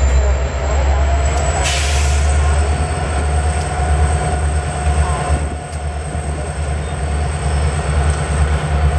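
Two diesel freight locomotives rumbling slowly past at close range, their engines making a steady, heavy low drone. A brief burst of hiss comes about two seconds in.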